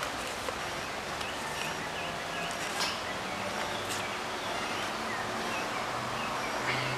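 Outdoor ambience: a steady background hiss, with a small bird's quick run of repeated chirps about a second in and a couple of faint rustles.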